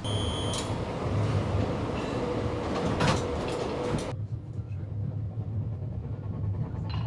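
Festungsbahn funicular railway car running with a steady low rumble. A short high beep sounds at the start, and a sharp knock comes about three seconds in.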